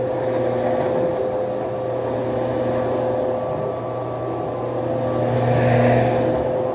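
Vacuum cleaner motor running steadily with a constant whine. It grows louder for a moment about five and a half seconds in.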